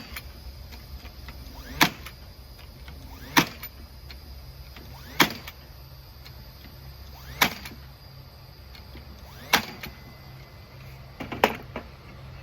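Six sharp single strikes from woodworking on a small wooden box, spaced about two seconds apart, over a steady low hum. A few lighter knocks follow the last strike near the end.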